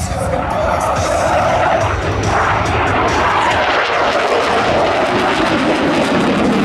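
Fixed-wing aircraft in flight, its engine noise loud and steady.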